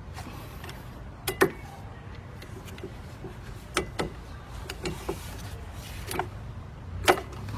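Half-inch drive hand ratchet tightening the wheel hub assembly's mounting bolts: a few sharp metallic clicks and clinks at irregular spacing, the loudest about a second and a half in and near the end, over a steady low hum.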